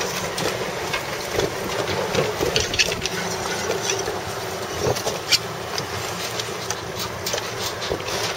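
Boat motor running steadily under wind noise on the microphone, with a few short sharp clicks.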